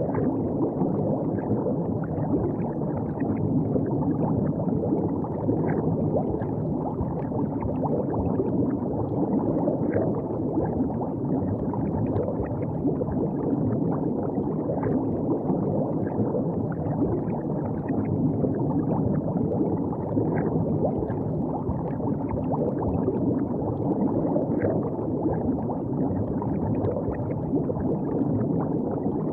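River water gurgling and lapping in a steady, low-pitched wash, with small splashes now and then.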